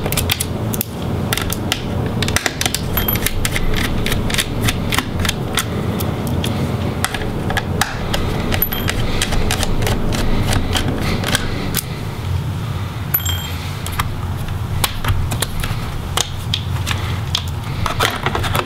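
Phillips screwdriver backing out the screws of a laptop's metal hard-drive caddy: a run of irregular light clicks and ticks from the driver tip in the screw heads and against the caddy and plastic case, over a steady low rumble.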